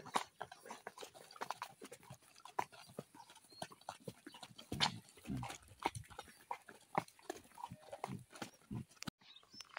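Mule hooves walking on a dirt track, an uneven run of clopping steps.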